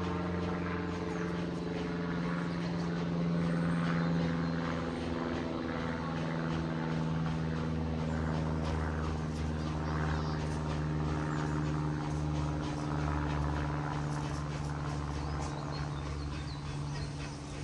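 An engine running steadily, its drone sinking slowly in pitch.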